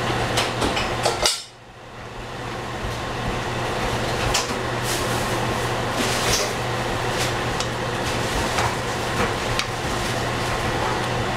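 Wooden spatula stirring a seafood stew in a frying pan: irregular clicks and knocks of the spatula and mussel shells against the pan over a steady hum. The sound drops out sharply about a second in and comes back gradually.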